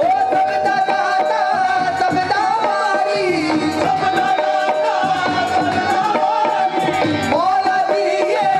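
Live qawwali music: harmoniums holding a reedy melody over tabla drumming and hand claps, with a lead voice singing over them.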